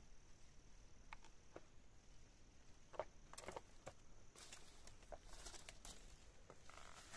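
Faint, scattered footsteps and crunching of boots on rock and dry brush, coming more often from about three seconds in.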